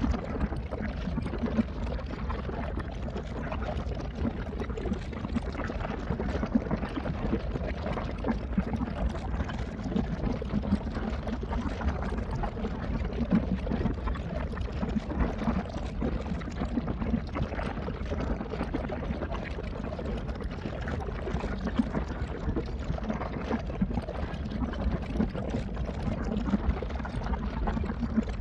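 Steady sound of moving water with many small splashes throughout.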